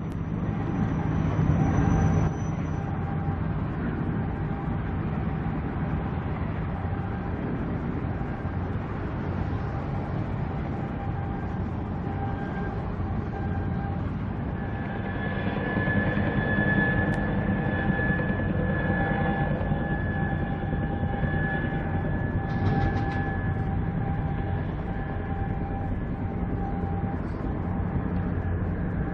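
Steady low drone of a cargo ship's engine and machinery carrying across harbour water, with several steady hums on top; a high hum grows stronger about halfway through as the ship draws nearer.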